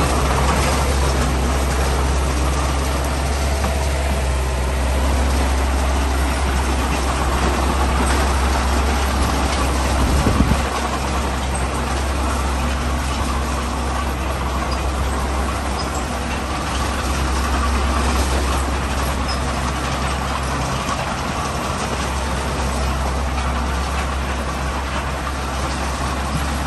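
Heavy diesel engines of a bulldozer and dump trucks at road work, running steadily with a deep low drone, with a brief louder bump about ten seconds in.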